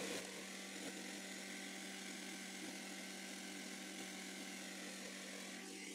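Homemade vibrating parts cleaner, an electric sander's head bolted to a stainless steel fryer part in a food bin, running with a steady pitched hum as it shakes chainsaw carburetor parts clean.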